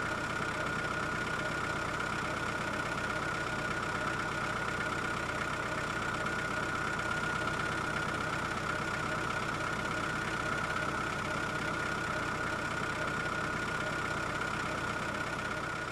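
A motor engine idling steadily, with an even hum and a prominent high steady tone.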